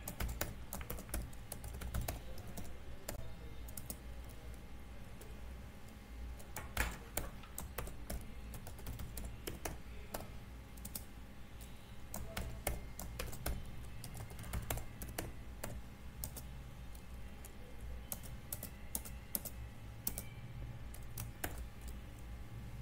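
Typing on a computer keyboard: irregular key clicks and Enter presses in short runs with pauses, over a faint low hum.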